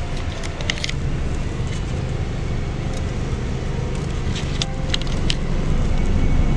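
Car driving, heard from inside the cabin: a steady low rumble of road and engine noise, with a few short high ticks.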